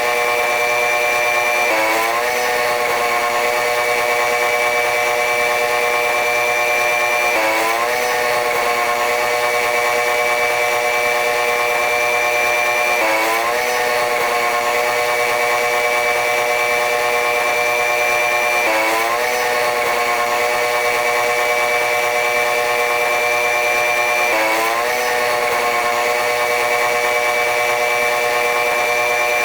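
Running noise of a train hauled by a diesel-electric locomotive: a steady mechanical whine made of several pitched tones over a rushing noise. The pitch dips sharply and climbs slowly back about every five and a half seconds, in an even repeating cycle.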